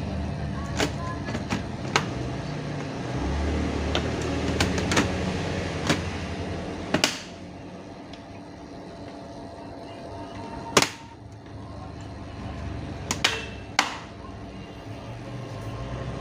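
A series of sharp clicks and knocks from handling a laptop's plastic case and parts, irregularly spaced, over a steady low background rumble.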